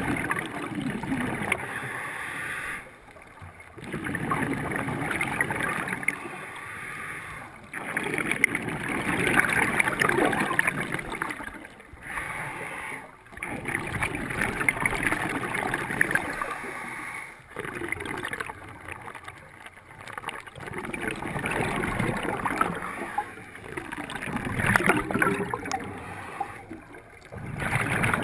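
A scuba diver breathing underwater through a regulator: the hiss of each breath and the gurgling rush of exhaled bubbles, in repeating cycles every few seconds with short pauses between.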